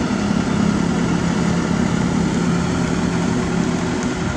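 Kobelco SK200 excavator's diesel engine idling steadily, an even hum with no change in pitch.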